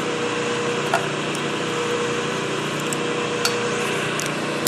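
Milling machine slowly plunging a roughly one-inch cutter into 1/4-inch hot-rolled steel plate: a steady running hum with the cutting noise over it, and a few sharp clicks, the loudest near the end.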